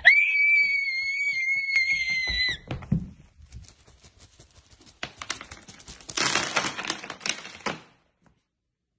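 A high-pitched shriek, held steady for about two and a half seconds, then cut off. It is followed by scattered clicks and then a dense run of rapid clicking and rattling that stops about eight seconds in.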